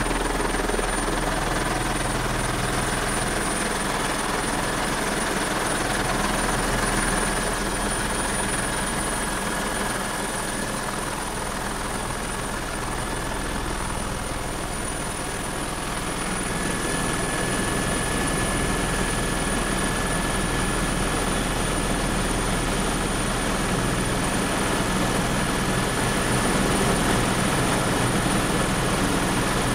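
Helicopter in flight, heard from inside the cockpit: steady engine and rotor noise with a high, steady whine over it.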